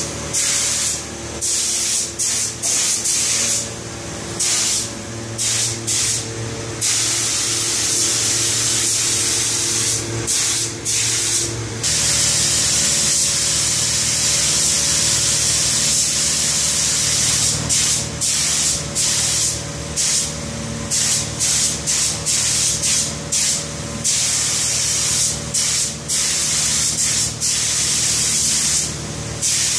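Gravity-feed paint spray gun hissing as it lays down a top coat, cutting in and out as the trigger is squeezed and released on each pass, with one longer unbroken pass around the middle. A steady lower machine hum runs underneath.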